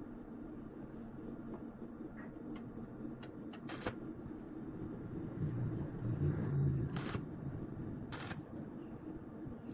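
Stick welder's electrode briefly striking an arc on galvanized steel square tube for tack welds: three short bursts of arc noise, about 4, 7 and 8 seconds in, with a few fainter clicks. A low hum swells between the second and third bursts.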